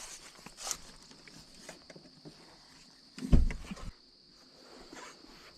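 Scattered footsteps on a woodland path, with one heavier, louder thump about three seconds in, over a steady high drone of insects.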